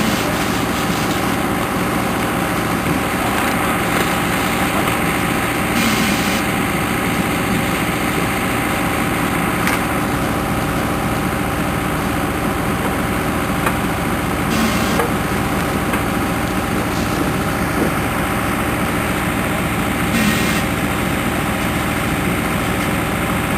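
Small engine running steadily at a constant speed, with a few short bursts of hiss over it.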